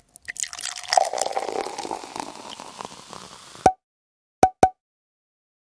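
A pouring rush full of small crackles, loudest about a second in and then fading, that cuts off suddenly. Short pops with a clear mid tone follow: one as the rush stops and two close together about three-quarters of a second later.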